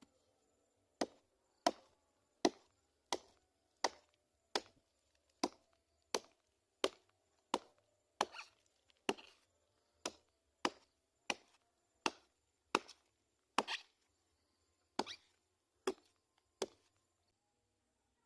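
Repeated chopping into a tree trunk with a blade, about twenty strokes at a steady pace of roughly three every two seconds, with a brief pause near the end. The trunk is being cut open to get at the gajor grubs inside.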